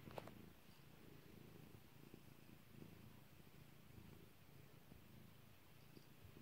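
Domestic cat purring faintly and steadily while being stroked. One sharp pop comes just after the start; the owner does not know what causes these popping noises.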